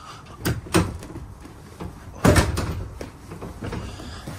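Clicks and thumps of an RV jackknife sofa being folded down into a bed: two light clicks about half a second in, a heavier thump a little past the middle, and another thump at the very end.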